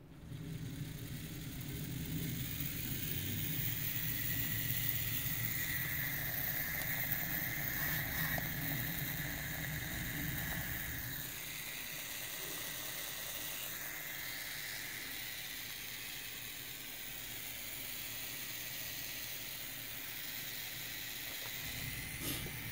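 24 V BLDC motor with a 42 mm 1:49 planetary gearbox starting up and running with a steady whine and gear hum. The sound eases a little about eleven seconds in, with a brief shift in pitch, and there is a light click near the end.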